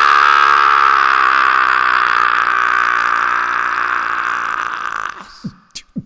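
A voice holding a long, drawn-out 'aaa' on the word 'Christmas', wavering slightly and fading over about five seconds. Near the end, a couple of beatboxed kick-drum thumps follow.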